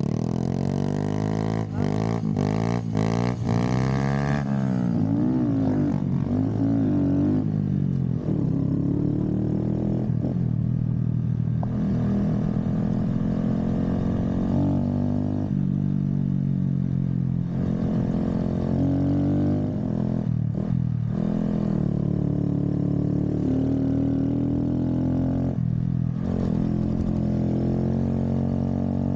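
Small motorcycle engine running under way, its pitch rising and falling with the throttle. A few sharp clicks and knocks come in the first few seconds.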